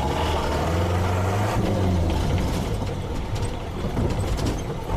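Off-road 4x4 engine running under load on a rough course. A steady engine note gives way about halfway through to a noisier stretch with some light clatter.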